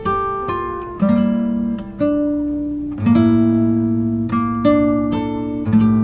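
Background music: an acoustic guitar playing plucked chords, struck about once a second and each left to ring out.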